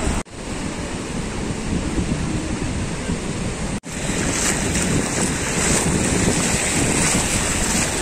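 Ocean surf washing over sand, mixed with wind noise on the microphone. The sound cuts out briefly twice; from about four seconds in it is the louder, hissier wash of shallow waves foaming around bare feet.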